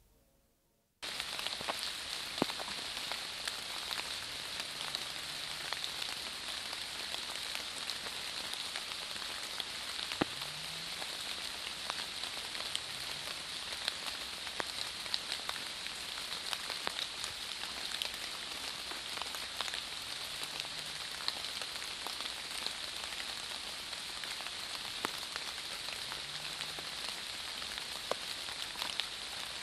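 Water drops pattering steadily onto dry leaf litter, a dense hiss of fine ticks, starting abruptly about a second in.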